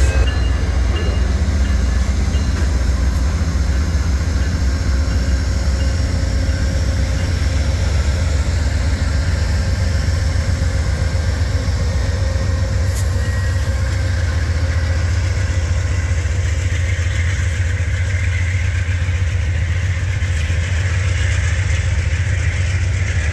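Amtrak GE P42DC diesel locomotives' engines running with a steady low rumble as the train pulls slowly away. Rolling wheel and rail noise from the passing Superliner cars builds in the last few seconds.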